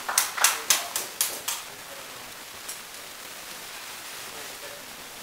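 A rapid exchange of rattan sword blows landing on shields and armour: about six sharp cracks in a second and a half, then they stop and only a steady hiss remains.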